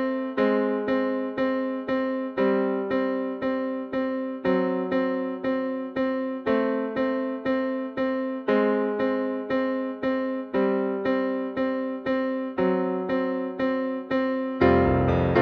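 Recorded piano accompaniment track, sped up to 118% tempo, playing steady repeated chords about four a second, the harmony changing every two seconds or so. Near the end it turns louder and fuller, with low bass notes added.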